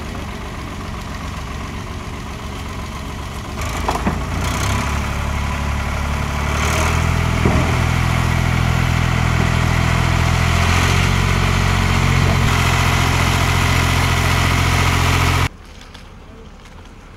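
A heavy engine running steadily, getting louder about four seconds in and again at about six and a half seconds, then cut off suddenly near the end, leaving quieter wind.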